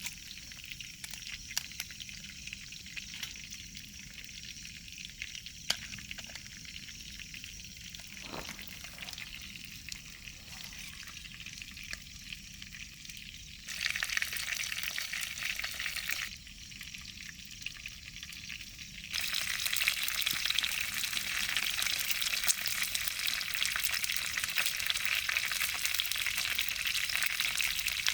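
Food frying in a pan: a steady sizzling hiss with a few light crackles. It grows suddenly louder about halfway through, drops back, then rises again for the rest.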